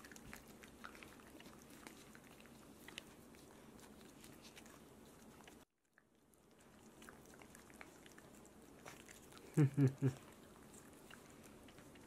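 Shiba Inu puppy licking paste treat from a squeeze tube: soft, quick wet licking and smacking clicks. Near the end comes a short three-beat voice sound, louder than the licking.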